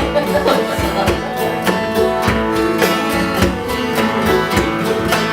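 Acoustic country band playing an instrumental break between verses: guitars picked and strummed in a steady rhythm with other plucked strings.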